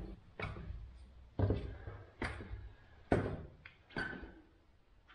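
Footsteps going down stone stairs, five steps about a second apart, each a sharp knock that echoes briefly in a small stone crypt.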